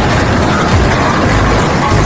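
Concrete mixer with hopper running, a loud, steady machine noise with a heavy low rumble.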